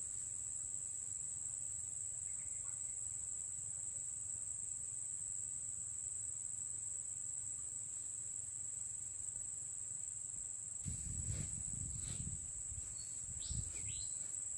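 Insects trilling steadily in the grass, one continuous high-pitched buzz, with a faint low rumble about eleven seconds in.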